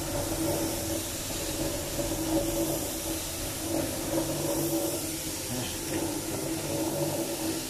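Single-disc rotary floor polishing machine running steadily with a white pad on densified polished concrete: an even motor hum with a hiss over it. The pad is buffing off the dust that the densifier raises, before the protector is applied.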